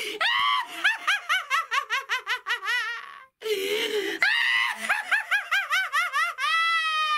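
A woman's theatrical cackle: rapid high-pitched bursts of laughter, about six a second, broken by a short breath about three seconds in, ending in one long drawn-out high laugh.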